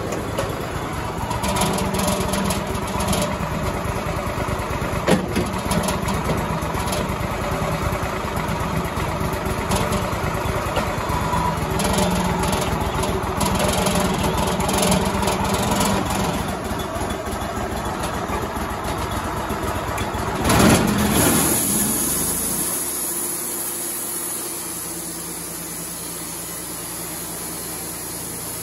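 Wood-Mizer LT35 band sawmill running under load as it saws cedar. About 21 s in there is a brief loud burst and the pitch falls away as the mill slows. It then settles into a quieter, steady hum with a hiss.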